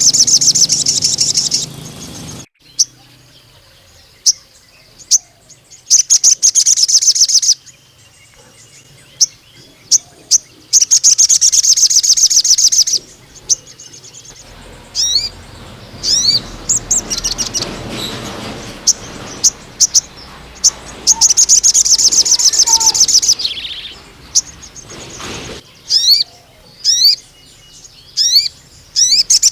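Male sogon (crimson sunbird) singing in full voice: long, rapid, high-pitched trills of a couple of seconds each, about four times. Between them come short sharp chirps and a few quick downward-sliding notes.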